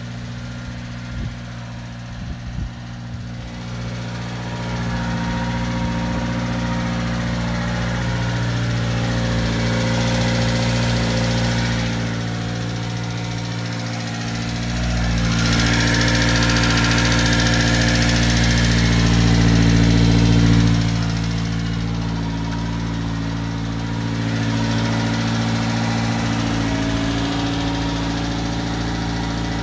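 A 1994 Subaru Sambar truck's 660 cc four-cylinder engine idling steadily, growing louder in the middle as the microphone passes near the rear of the truck, then easing back.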